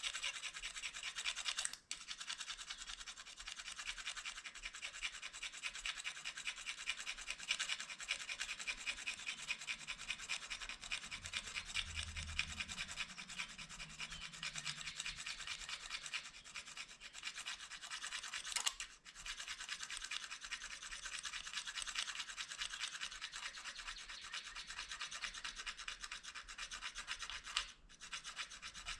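Plastic fork tines rasping rapidly back and forth along the edge of a plastic spoon to sharpen it, a continuous fast scraping that stops briefly three times.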